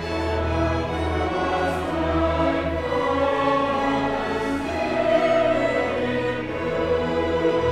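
Large choir singing in long held chords, accompanied by a string orchestra of violins and cellos.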